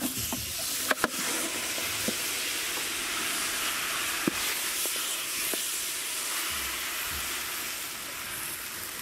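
Raw pork pieces hitting hot oil in a large aluminium pot, setting off a steady sizzle that eases a little near the end. A few sharp metal clinks from the bowl and ladle against the pot.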